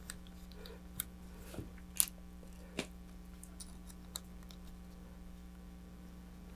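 Small hardware handled by hand at a workbench: a handful of light clicks and taps over the first four seconds, against a steady low hum.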